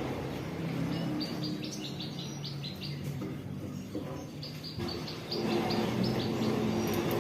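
Domestic canary singing its breeding song, runs of short, quickly repeated high notes, in two phrases with a brief pause around the middle, over a steady low drone.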